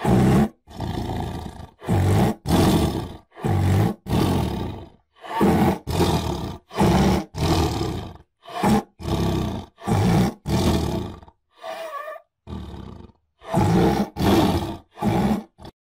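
Tiger roaring and growling in a long series of short, loud calls, each under a second, one after another with brief gaps. A few calls about twelve seconds in are quieter, and the calling stops shortly before the end.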